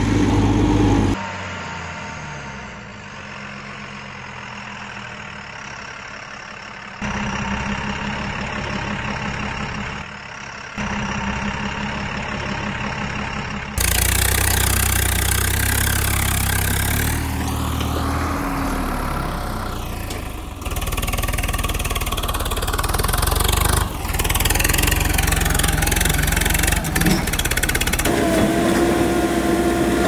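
Heavy vehicle engine sounds, running and idling with a brief rev partway through. The sound changes abruptly several times, from one engine sound to another.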